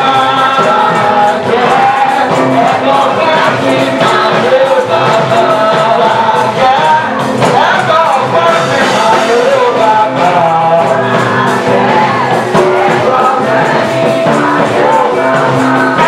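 Church praise music with singing, loud and without a break.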